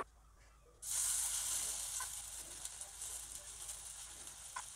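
Oats-and-banana pancake batter sizzling as it is spooned into hot oil in a non-stick pan. The sizzle starts suddenly about a second in and slowly dies down.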